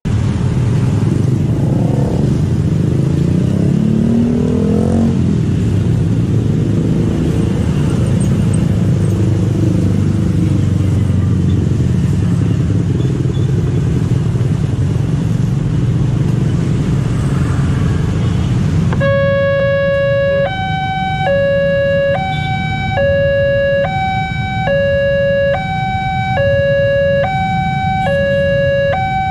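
Motorcycle and scooter traffic at a railway level crossing, engines running and accelerating past. About two-thirds of the way through, the crossing's electronic warning alarm starts, alternating between a low and a high tone about every two-thirds of a second, signalling an approaching train as the barrier closes.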